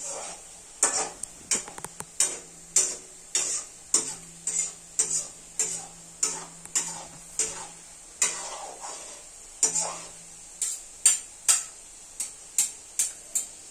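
Crisp fried shredded potato crackling as it is pressed and moved about in a hand, short dry crackles at roughly two a second. A faint steady low hum underneath.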